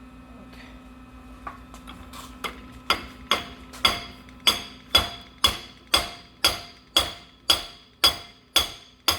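Hammer striking the steel of a seized bench vise to drive it apart, a steady run of ringing metallic blows about two a second. The blows start as light taps and become hard from about three seconds in.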